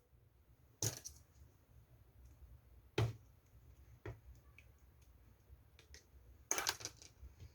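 Opaque slime being pressed and played with by hand, giving a few sharp clicking pops: one about a second in, a louder one at three seconds, a smaller one soon after, and a short crackling run near the end.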